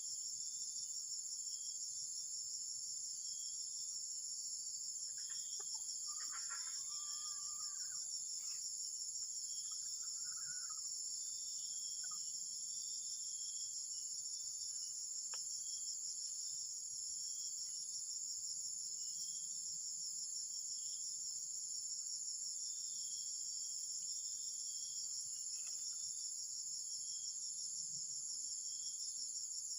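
Steady, high-pitched insect chorus with a fine, fast pulse, carrying on unbroken, with a few faint short bird calls about six and ten seconds in.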